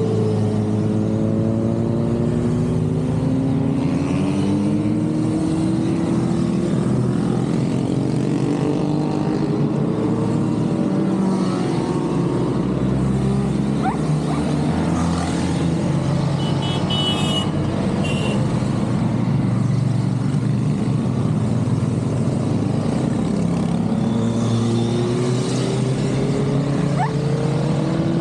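A continuous stream of motorcycles riding past, many engines running at once, their notes sliding up and down in pitch as the bikes go by. A short, high two-part tone sounds about two-thirds of the way in.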